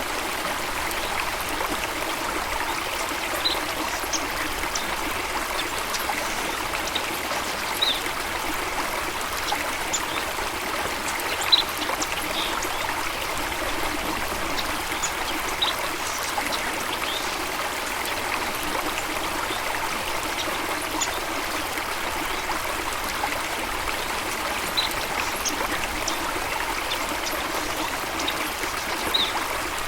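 Water running steadily in a continuous rush, with short high bird chirps scattered now and then over it.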